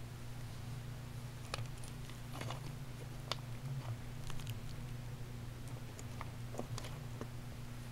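Faint handling noise: scattered small clicks and taps, a few each second at most, over a steady low hum.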